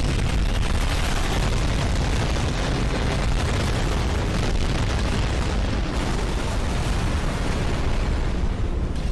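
Animated air-battle sound effects: a dense, continuous wash of explosions and gunfire with a deep low end.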